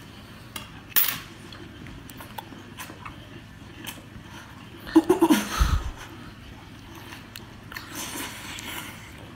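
Close-up eating sounds: shrimp dripping with chili oil being sucked into the mouth and chewed, with fingers licked clean. A sharp click comes about a second in, and a louder wet burst about five seconds in.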